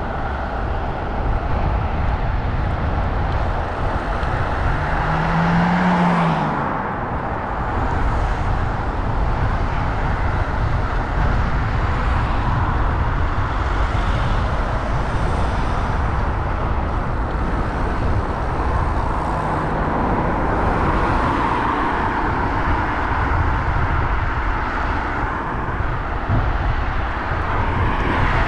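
Steady rumble and hiss of a vehicle travelling along a wet road, with wind on the microphone. A short low hum rises and falls about five seconds in.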